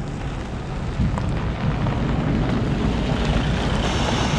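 Distant, steady low rumble of a Boeing 737-400's CFM56-3 turbofan engines as the jet climbs away after take-off.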